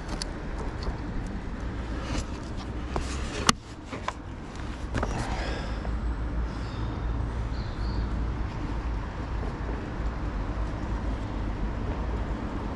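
Small clicks and ticks of fishing tackle handled close by as a new hook link is fixed to a float rod's line, with one sharper click about three and a half seconds in, over a steady low rumble.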